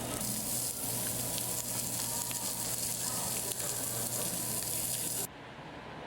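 Food sizzling in hot fat, a dense hiss with fine crackles. About five seconds in it cuts off abruptly to a quieter, duller steady hiss.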